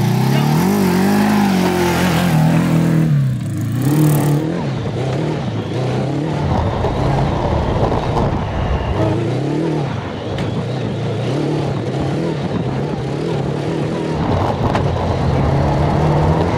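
Off-road kart's engine pulling away and then revving up and down repeatedly as the driver gets on and off the throttle around a dirt circuit, heard close on board.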